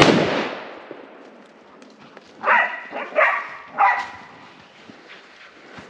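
A hunting rifle shot, its report dying away in echoes over about a second and a half. Then a tracking dog barks three times, starting about two and a half seconds in.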